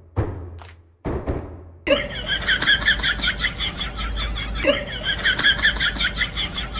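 Harsh laughter sound effect: a fast run of repeated laughs, about five a second, starting about two seconds in. Before it come two sudden thumps that fade away.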